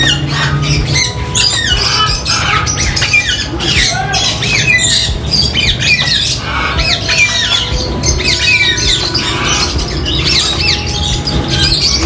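Many caged parrots, including ringneck parakeets, squawking and screeching at once in a dense, overlapping chorus of short rising-and-falling calls.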